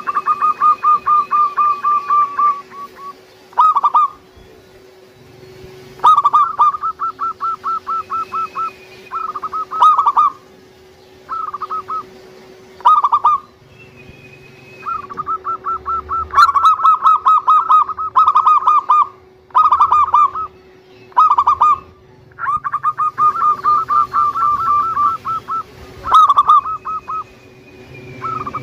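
A big-voiced local zebra dove (perkutut) cooing: phrase after phrase of quick staccato coo notes, each run lasting from a fraction of a second to a few seconds, with short pauses between. A faint steady hum lies underneath.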